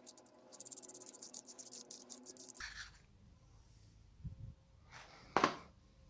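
Faint handling of a small metal-bodied ZWO ASI290 planetary camera: a quick run of light clicking for about two seconds as the black fitting is twisted off its threads. A soft knock and a short, louder rush of noise follow near the end.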